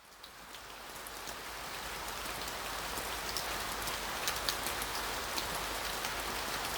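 Steady rain falling, an even hiss with scattered sharp drop ticks, fading in from silence and slowly growing louder.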